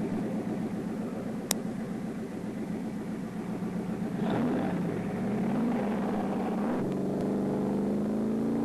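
Plymouth Satellite's 426 Hemi V8 running steadily at the line, then growing louder from about four seconds in as the car accelerates, its pitch climbing, breaking near seven seconds and climbing again. A single sharp click about a second and a half in.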